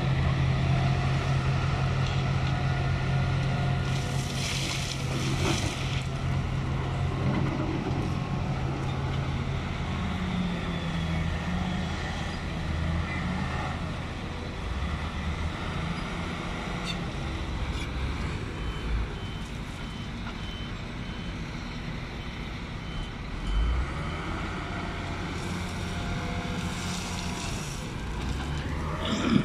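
Heavy diesel engines of a dump truck and excavators running hard, a strong steady engine drone through the first ten seconds, then rising and falling. Two bursts of hissing come about four seconds in and near the end, and faint repeated beeping runs through the second half.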